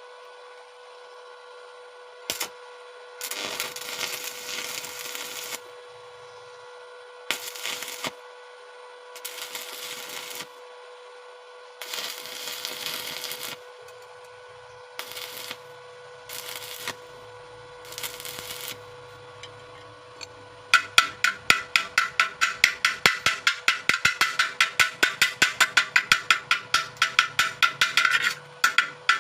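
Stick (arc) welding on thin sheet metal with a 2.6 mm electrode, laid down as a series of short crackling arc bursts, each from half a second to about two seconds long. From about 21 seconds in comes a fast, even metallic tapping, about five or six strikes a second, louder than the welding.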